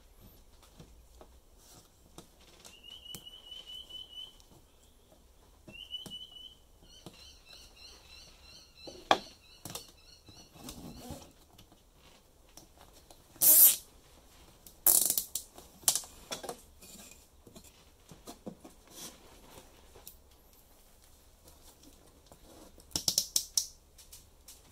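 Plastic cable ties being pulled tight through drilled holes to stitch plywood panels together, their ratchets giving several short zips in the first half. Sharp clicks and knocks of handling the ties and plywood follow, the loudest about halfway through and again near the end.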